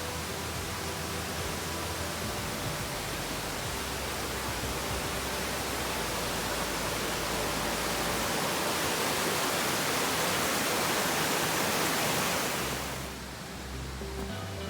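Tall waterfall rushing, a dense steady wash of falling water that swells louder in the middle and drops off suddenly near the end.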